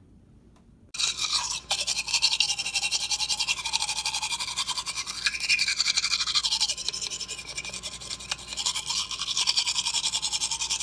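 Rapid, continuous scrubbing buzz that starts abruptly about a second in, with a hum underneath that wavers up and down in pitch.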